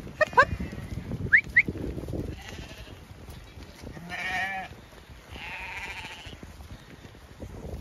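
Zwartbles sheep bleating, two wavering bleats about four and five and a half seconds in. They follow a few short, loud rising chirps in the first two seconds.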